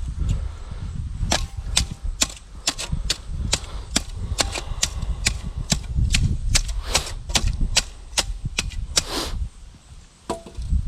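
Rapid, irregular sharp strikes of a hand tool, about two or three a second, over low rumbling handling noise, during work setting a fence post. The strikes thin out and the rumble drops near the end.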